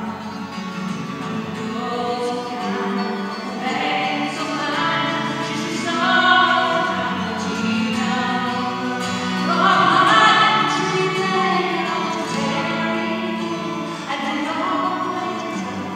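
Live folk song: singing over a strummed twelve-string acoustic guitar, the voice swelling louder and climbing in pitch about ten seconds in.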